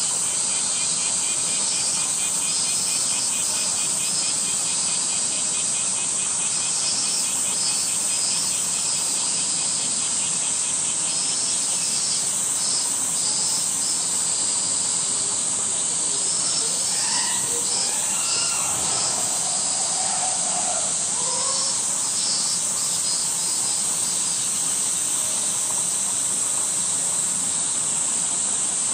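Summer cicada chorus: a steady, loud, high-pitched drone, with a higher insect call repeating in short pulsed phrases every second or two over it.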